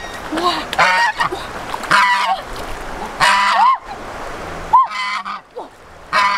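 White domestic goose honking repeatedly, about half a dozen loud calls a second or so apart, while held in a person's arms. Water sloshes underneath as she wades.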